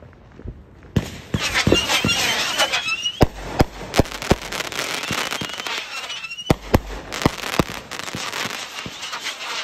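Consumer fireworks going off in a dense barrage: sharp bangs and crackling start about a second in, mixed with whistling tones that glide up and down, and repeated loud reports continue to the end.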